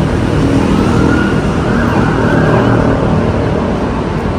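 Steady road traffic noise from the street below, with an emergency-vehicle siren wailing faintly over it, its pitch sweeping up and down for a couple of seconds in the first half.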